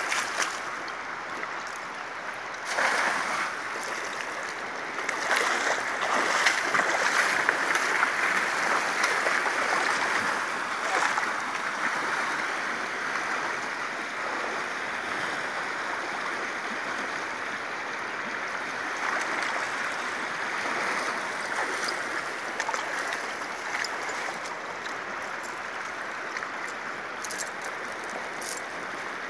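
Fast, shallow river rushing steadily over rapids, swelling louder for several seconds about five seconds in. Scattered splashes come from wading and from dragging a cast net through the water.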